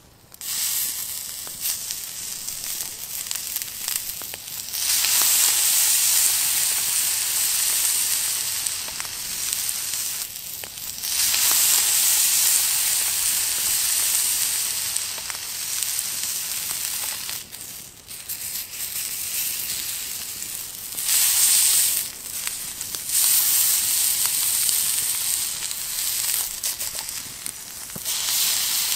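Ground lamb sizzling on a hot cast-iron grill pan as the patty is smashed flat with a drinking glass and left to sear. The sizzle is a steady high hiss that grows louder about five seconds in and drops briefly a few times.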